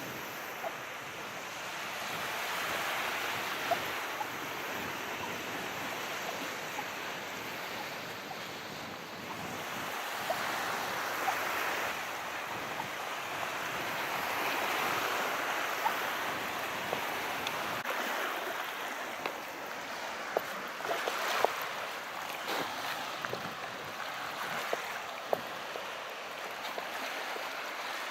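Calm sea waves, the wash swelling and easing every five to six seconds, with scattered small crackles.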